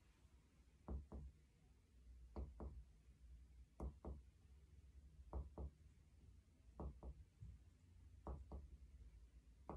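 Finger-on-finger (mediate) percussion of the patient's back: faint paired taps, two quick strikes about every second and a half, stepping down the paravertebral line to locate the lower border of the lung.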